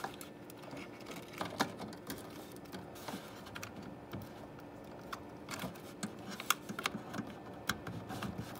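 Scattered light clicks and taps of hands handling computer parts, reconnecting a hard drive's SATA data and power cables. A faint steady hum runs underneath.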